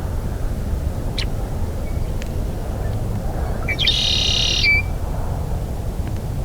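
Red-winged blackbird singing: a couple of short high notes, then one trilled song about a second long about four seconds in, over a steady low rumble of wind on the microphone.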